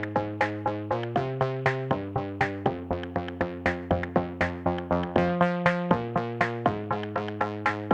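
Background electronic music: a quick, even run of short synth notes over held bass notes.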